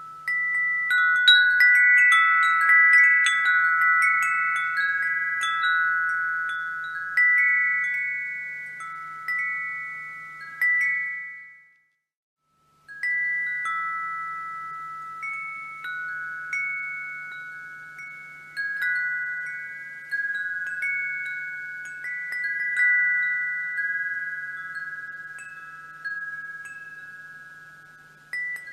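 Wind chimes ringing, struck again and again in overlapping clear notes from a small set of fixed pitches, each note slowly dying away. The sound cuts out completely for about a second near the middle, then the chimes start again.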